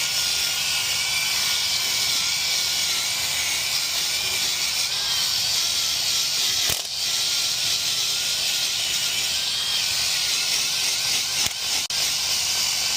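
Power tool spinning a wire brush against a Ford F-150's front hub mounting surface, scouring off surface rust before a new wheel hub goes in: a steady scrubbing with a wavering motor whine, easing off briefly about seven seconds in and twice near the end.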